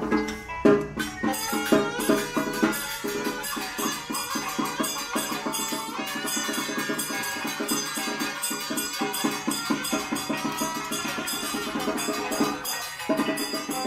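Traditional Vietnamese ceremonial ensemble music: fast, steady wood-block clicking and drum under a pitched instrumental melody.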